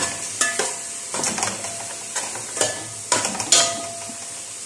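A metal spoon stirring and scraping shrimp, onions, garlic and green chili around an aluminium pot, with several clinks against the pot's side over a faint sizzle of the food frying.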